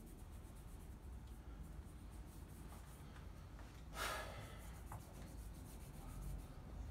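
Hands being rubbed with chalk: faint rubbing and scuffing, with one short, louder swish about four seconds in.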